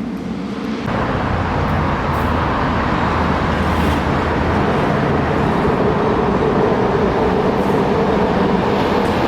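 SkyTrain train passing on the elevated guideway: a loud, steady rushing noise with a humming tone, which jumps up about a second in and holds.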